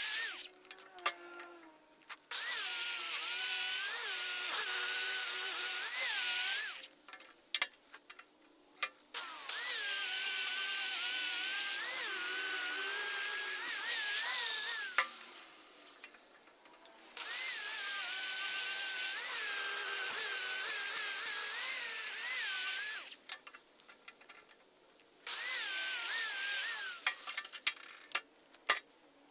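Small handheld angle grinder grinding the saw-cut edge of a steel flat bar strip held in a vise, run in about five bursts of a few seconds each; its high whine dips in pitch each time it is pressed into the steel and recovers. Between bursts come short knocks and clatter.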